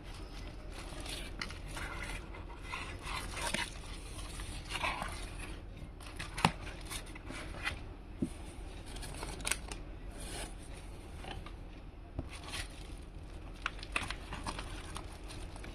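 Product packaging being opened by hand: crinkling, scraping and tearing of wrapping with scattered sharp clicks, the loudest about six and a half seconds in.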